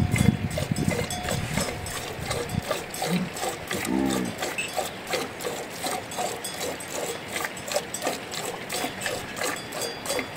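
Yaks grunting low in the first second and once more about four seconds in, followed by a steady run of short clicks about two or three a second.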